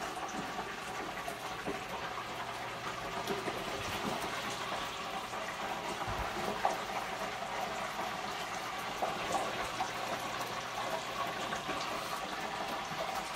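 Crumb-coated yellow perch fillets frying in hot oil: a steady sizzle dotted with small crackling pops, over a faint low hum.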